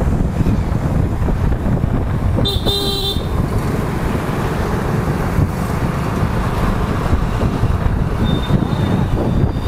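Riding a motorcycle through city traffic: steady wind and road rumble on the helmet or bike microphone, with a short vehicle horn honk about two and a half seconds in.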